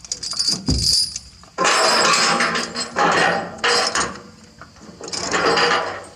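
Metal clanking and rattling in four loud stretches, with a low thump about a second in.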